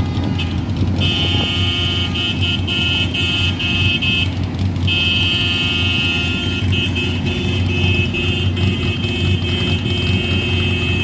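Car horns blowing long, held blasts, with a short break about four seconds in, over the low steady rumble of a queue of cars.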